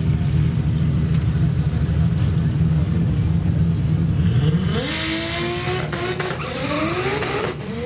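Drag car launching from the start line: its engine pitch rises, drops and climbs again about three times as it shifts up through the gears and accelerates away. A steady low engine drone sits underneath.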